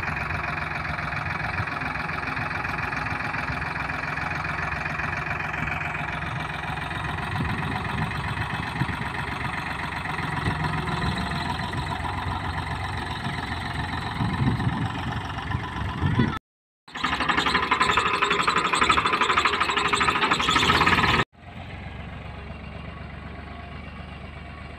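Farmtrac tractor's diesel engine running steadily under load while it drags a rear leveling blade through sandy soil. About two-thirds of the way in, the sound cuts out abruptly, then returns much louder for about four seconds. It cuts out again and settles to a quieter, more distant engine drone.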